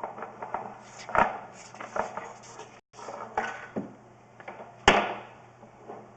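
Irregular knocks, clatters and scrapes of a sewer inspection camera's push cable being fed down a vent pipe, about half a dozen strikes with the sharpest one near the end, over a faint steady hum.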